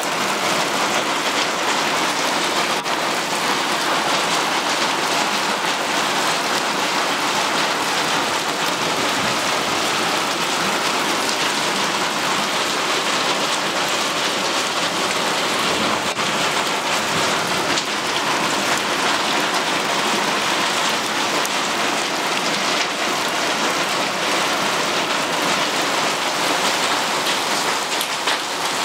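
Hailstorm: hail and rain beating steadily on a clay-tile roof and a tiled patio, a dense, even noise full of fine ticks.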